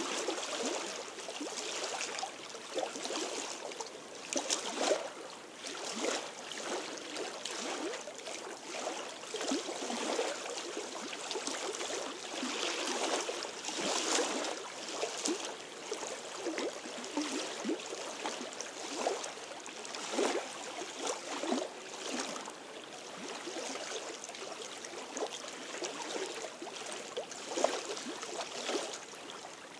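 Small waves lapping and splashing against the stones and edge of a lakeshore, an irregular run of soft splashes.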